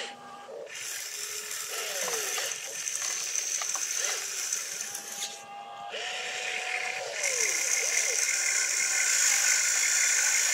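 Radio-controlled excavator's small electric motors and gears whirring as the boom and bucket work, starting up about a second in, stopping briefly about five seconds in, then running again louder.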